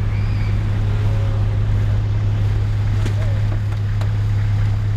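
Vehicle engine idling with a steady low hum. A few light knocks about three and four seconds in come from gear being handled in the cargo area.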